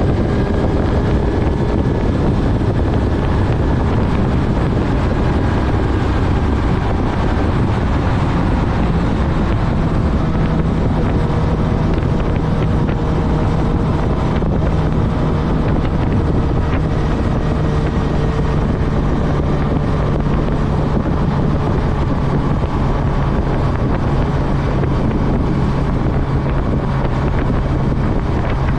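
Honda CB1000R's inline-four engine running at a fairly steady cruise, its note drifting only a little in pitch, with wind rushing over the microphone.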